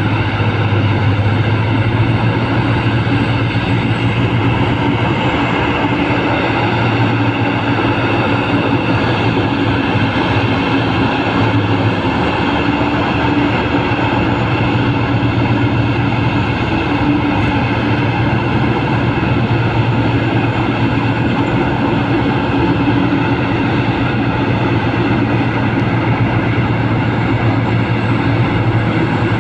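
Large hydraulic mining excavator's diesel engine running steadily under load, a continuous loud drone with a deep hum.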